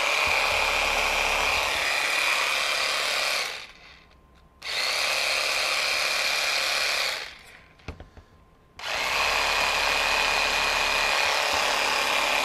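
Festool PSC 420 Carvex 18 V brushless cordless jigsaw running free, not cutting, with a steady high whine. It stops about three and a half seconds in, runs again from about four and a half to seven seconds, and after a couple of light clicks starts again about nine seconds in.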